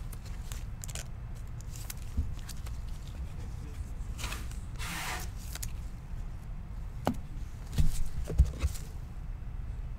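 Trading cards being handled at a table: scattered light taps and clicks, with two brief brushing swishes about four and five seconds in and a small run of taps near the end as cards are slid and set down.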